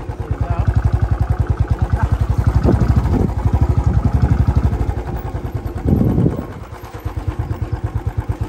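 Royal Enfield Bullet's single-cylinder engine running under way on a rough dirt track, with a steady, rapid exhaust beat. It goes briefly quieter about seven seconds in, then picks up again.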